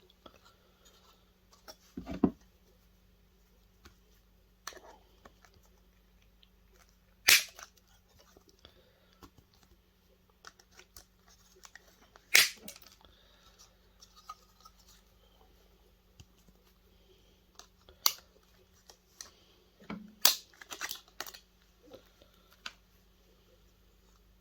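Scattered sharp clicks and knocks of plastic and metal parts being handled and pried apart while dismantling a video projector, several loud ones spaced a few seconds apart and a quick cluster near the end.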